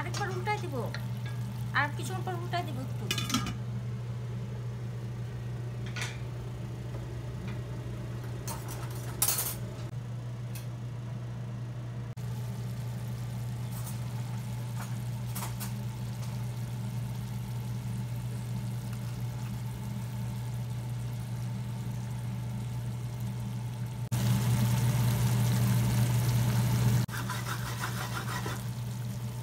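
Wooden spoon stirring a stainless steel pan of simmering hilsa mustard curry, knocking sharply against the pan a few times, over a steady low hum. The cooking noise gets louder for about three seconds near the end.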